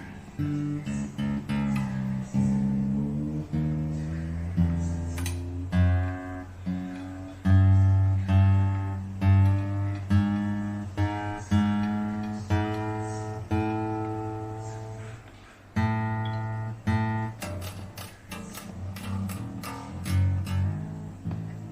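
Acoustic guitar played slowly: plucked chords and notes ring out and die away one after another, about one a second.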